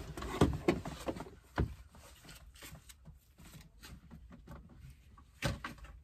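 Scattered knocks and clunks as a loose car seat is handled and pulled out of the car, with small rattles between. The loudest knocks come about half a second in, after about a second and a half, and near the end.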